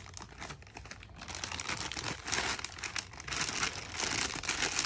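Coloured play sand and its plastic packaging being handled in a plastic sensory bin: crinkly, gritty rustling in bursts about a second long.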